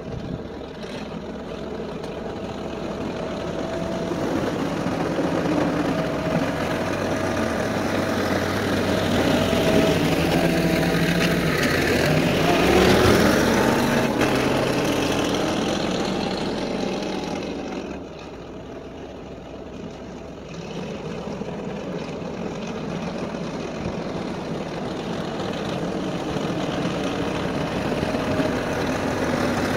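Ford 5610S tractor's diesel engine running as it pulls a box blade along a gravel driveway, with a noisy gravel-scraping haze under the engine note. It grows louder as it nears, peaks about halfway, drops off suddenly a few seconds later, then builds again near the end.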